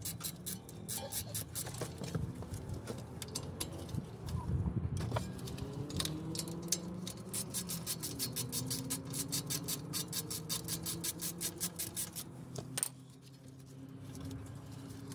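3/8-drive ratchet with a 14 mm socket clicking rapidly and steadily, about five clicks a second, as it runs out the brake caliper bolts. The clicking thins out around five seconds in, resumes, and stops about two seconds before the end.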